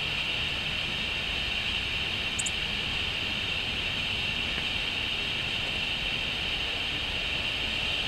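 Steady hiss over a low rumble, with two quick high bird chirps about two and a half seconds in.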